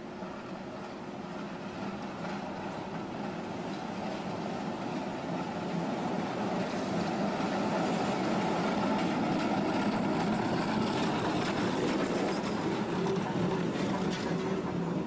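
Vintage heritage streetcar rolling along street-embedded rails, its wheels and running gear rumbling louder as it approaches and passes, loudest about two-thirds of the way through.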